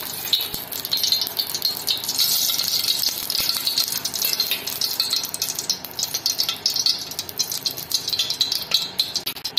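Ghee sizzling and crackling as it melts and heats in a stainless steel pot: a dense, steady patter of tiny pops, the sign that the ghee is getting hot enough for the spices to go in.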